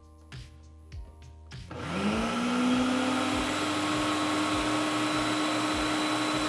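Quiet background music with a steady beat; then, a little under two seconds in, a Ninja food processor's motor starts. Its whine rises as it spins up and it then runs steadily, puréeing cooked soup.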